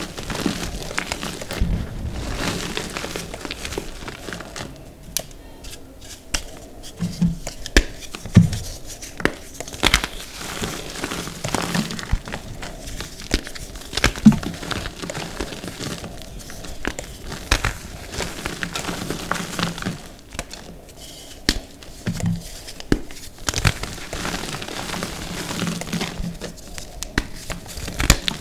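Hands squeezing and crushing chunks of reformed gym chalk into its loose powder: a continuous run of dry, irregular crunches and crackles, with a few louder snaps among them.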